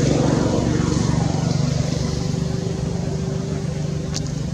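Motor vehicle engine running nearby, a steady low hum that slowly fades, with a single short click about four seconds in.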